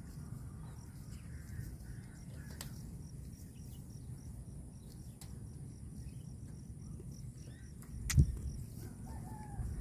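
Faint bird calls, chicken-like, over a steady low rumble, with one sharp knock near the end.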